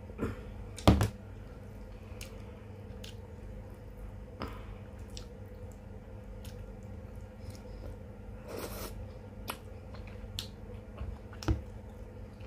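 Close-up mukbang eating sounds: moist chewing of chicken and rice, with scattered sharp clicks and taps, the loudest about a second in and another near the end, over a steady low hum.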